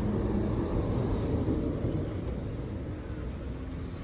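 Low rumbling background noise, louder in the first two seconds and then easing off.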